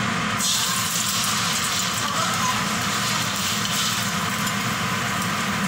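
Beaten eggs sizzling as they are poured into a hot nonstick wok, the hiss starting suddenly about half a second in, over a steady low hum.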